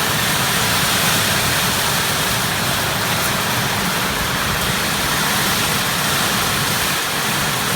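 Steady downpour of rain, an even hiss with no breaks.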